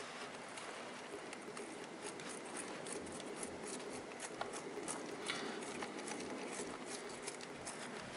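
Faint small metallic clicks and light scraping as a nut is fitted and threaded by hand onto a motorcycle engine's exhaust-port stud, over a steady faint background noise.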